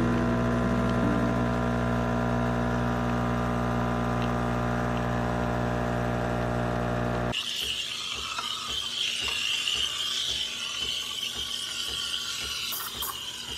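De'Longhi La Specialista espresso machine's pump humming steadily while pulling a shot. About seven seconds in the hum stops suddenly, and the steam wand starts hissing as it steams milk in a steel jug.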